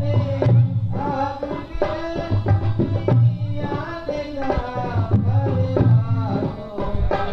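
Indian music with tabla drumming, deep bass strokes and sharper hits under a bending melodic line.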